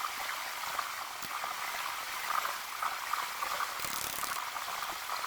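Aerosol spray paint can spraying: a steady hiss with slight fluctuations.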